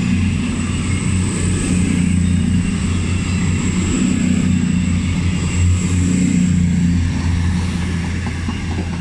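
CrossCountry Class 221 Super Voyager diesel multiple unit pulling away from the platform, its underfloor diesel engines running under load with a steady low drone and a thin high whine, easing slightly near the end as it moves off.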